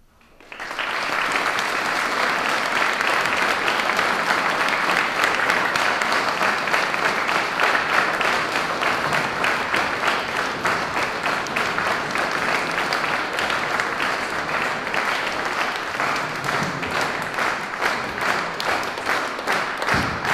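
Audience applauding, starting suddenly about half a second in and staying loud; from about the middle on, the clapping falls into a steady, even beat as the crowd claps in unison.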